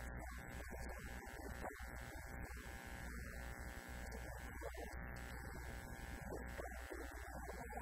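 Steady electrical buzz with a low mains hum underneath, running throughout, with a man's voice faint beneath it.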